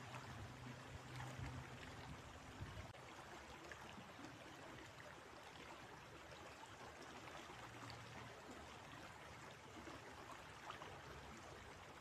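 Faint steady rush of river water flowing over rocks.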